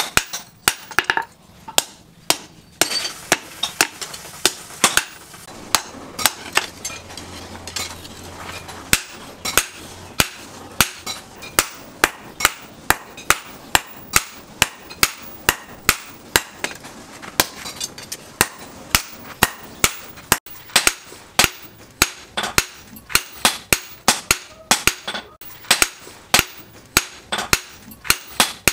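Hand hammer striking red-hot leaf spring steel on a steel post anvil, forging a butcher knife blade: a steady run of sharp metallic blows, about two to three a second, with a short pause about two seconds in.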